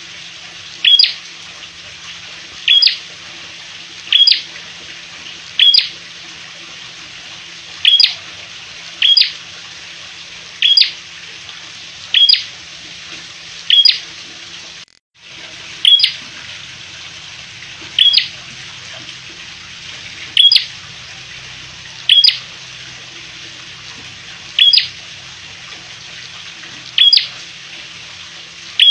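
Caged red-headed prenjak giving a loud, sharp, high call over and over, roughly every one and a half to two seconds, with a brief break about halfway. A steady hiss and a faint low hum run underneath.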